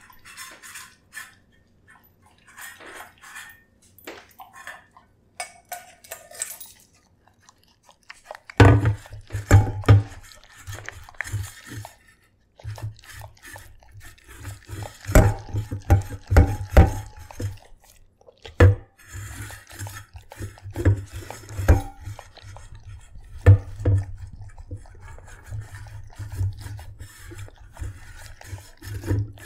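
A dog eating from a stainless steel bowl: wet chewing and licking, with the tongue and food clicking and the metal bowl clinking. The sounds are sparse at first and become much louder and denser, with a low rumble underneath, from about nine seconds in.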